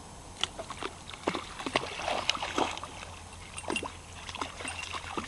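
A young puppy splashing and pawing through shallow water: an irregular run of quick splashes starting about half a second in, thickest in the middle.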